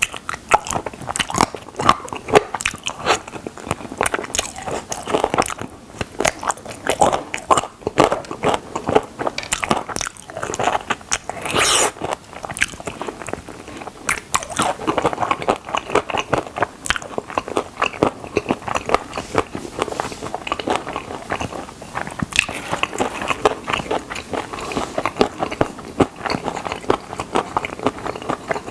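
Close-up eating of crispy fried chicken drumsticks: crunchy bites into the breaded skin and wet chewing, a dense, irregular run of crackles and crunches.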